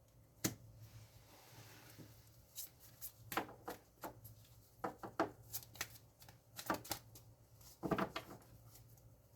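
Tarot cards being shuffled and handled: irregular short snaps and taps of card stock, some single and some in quick clusters.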